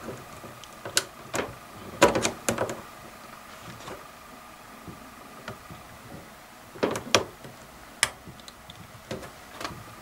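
Sharp metallic clicks and knocks of locking pliers shifting on a steel laptop hinge shaft as it is gripped and twisted, in short clusters with a quiet stretch in the middle. The hinge is too tight to turn with the pliers.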